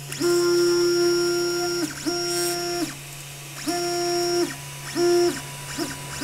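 3D printer's X-axis stepper motor whining at a steady pitch as the print-head carriage is jogged along the gantry in four separate moves. Each move rises into the tone and falls out of it as the motor speeds up and slows down. A steady low hum runs underneath.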